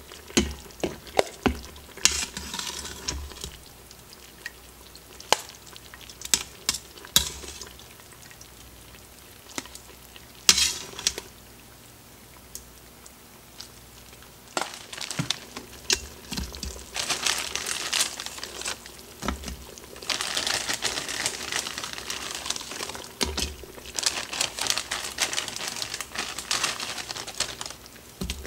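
Metal tongs clinking and knocking against a stainless steel pressure-cooker pot as chicken pieces are lifted out of the sauce. Later comes a long crinkling rustle of a plastic bag as broccoli florets are shaken out of it into the pot.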